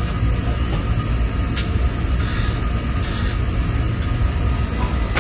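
Steady low hum and hiss of background room noise, with a light click about one and a half seconds in and another at the end.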